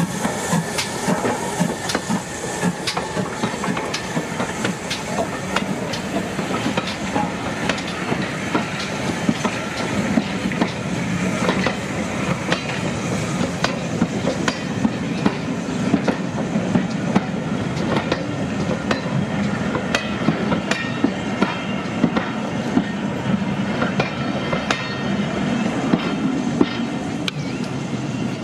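Train of passenger coaches rolling past close by behind a steam locomotive, a steady stream of wheel clicks and clatter over the rail joints.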